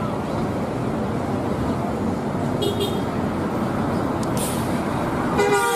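Intercity buses and traffic passing on a road, a steady engine and tyre noise. Near the end a bus horn gives a loud, steady blast.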